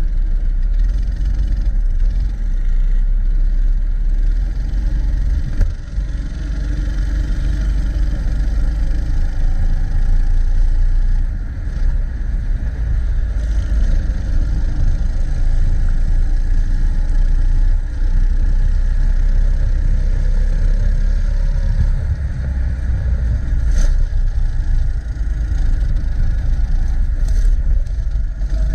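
80cc go-kart engine running during a race, its pitch rising and falling with the throttle over a deep, steady rumble, with brief dips in loudness.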